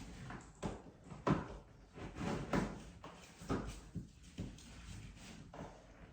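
Electrical cable being pulled and worked through an old plastic conduit pipe: a run of short, irregular scrapes and knocks.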